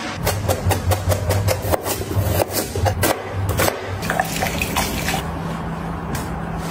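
Chef's knife chopping celery on a cutting board, a quick run of sharp chops. About four seconds in, it gives way to hot stock pouring from a kettle into a glass measuring jug.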